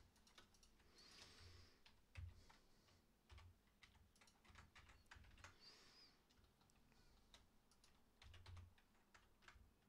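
Faint, irregular clicking of computer keyboard keys, with a few soft low thumps.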